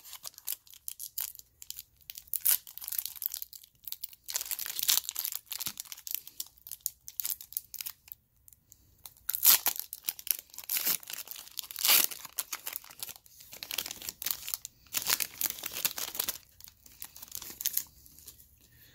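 A foil wrapper on a 2011 Panini Totally Certified football card pack being torn open and crinkled by hand. The sound is irregular crackling and tearing that stops about a second before the end.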